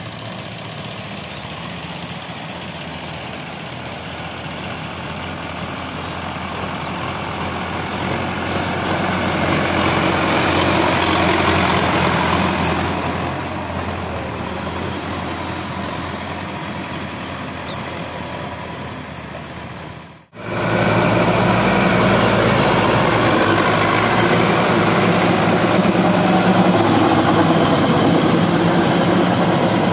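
Sonalika DI 750 tractor's diesel engine running steadily while driving a rear rotavator through flooded, muddy ground. It swells louder about a third of the way in, cuts out for a moment about two-thirds through, then comes back louder and steady.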